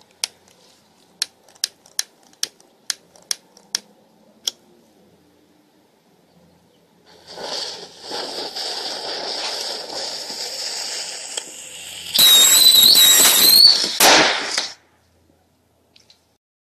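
A string of sharp clicks, then a steady hiss of bottle rockets burning. About twelve seconds in, this turns into a loud whistling, crackling rush for a couple of seconds that cuts off suddenly.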